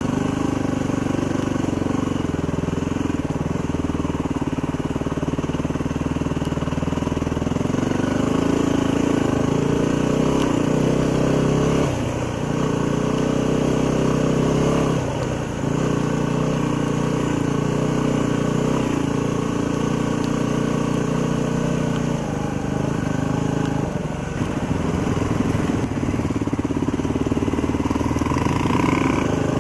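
Yamaha WR250R 250 cc single-cylinder dual-sport motorcycle engine running under way at a fairly steady pace, the engine note briefly dropping and changing pitch about three times as the throttle is rolled off or a gear is changed.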